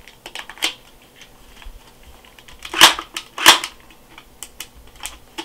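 Plastic clicks and clacks as a battery magazine is fitted into a Crosman Pulse R71 airsoft gun, then two loud sharp cracks under a second apart about three seconds in.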